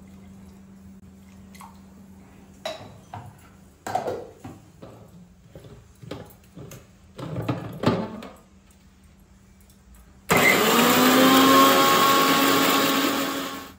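A few clinks and knocks of a steel mixer-grinder jar being handled and set in place. About ten seconds in, an electric mixer grinder starts and runs loudly for about three seconds, grinding garlic cloves with water into a paste. Its pitch rises as it spins up, and it dies away at the end.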